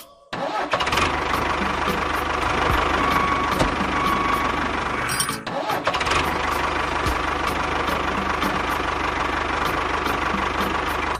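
An engine starting up and running steadily, cutting out briefly about halfway through and then running on.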